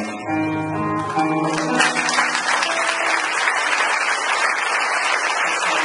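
Two acoustic guitars strum and let a final chord ring, then the audience applauds from about a second and a half in.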